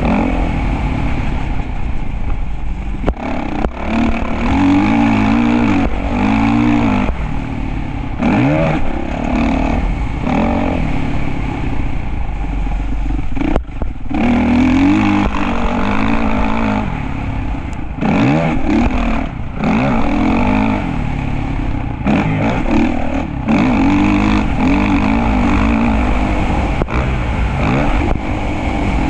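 Motocross bike engine being ridden hard, its pitch climbing and dropping every second or two as the throttle is opened and shut, over a steady low rumble.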